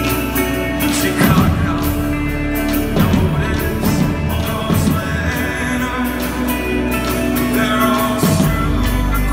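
Folk-rock band playing live in a large hall: strummed acoustic guitar, keyboards and drums with sung vocals, the drum hits falling about every two seconds and a deeper bass note coming in near the end.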